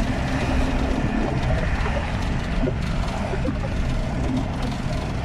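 Steady road and engine noise of a moving car, heard from inside the cabin, a continuous low rumble with tyre hiss.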